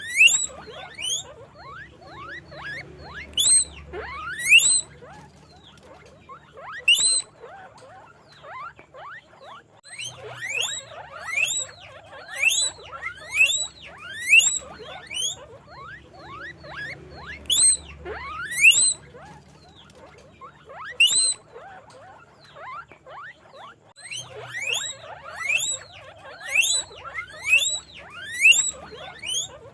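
Guinea pig squeaking: bouts of short, sharply rising high-pitched whistles, several a second, broken by brief pauses.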